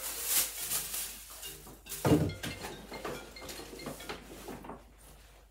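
Plastic bag rustling and crinkling as it is handled, with one heavy thump about two seconds in, as of something set down on a table; the handling fades toward the end.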